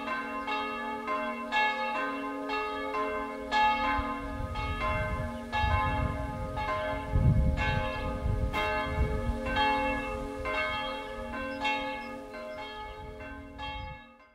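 Two swinging bronze church bells ringing together, their strikes overlapping at about two a second at different pitches, with a low rumble in the middle; the ringing fades out near the end.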